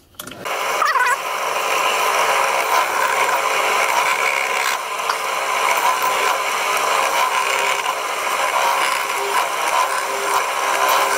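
Bench pillar drill starting with a brief rising whine, then running steadily as a clearance drill spots holes through a steam locomotive's valve chest into the cylinder body. The footage is played at four times speed, so the motor and cutting noise come out quicker and higher.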